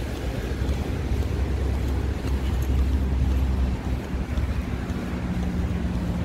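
Wind buffeting the microphone with a heavy low rumble, over the steady rush of surf. A low steady hum sets in about five seconds in.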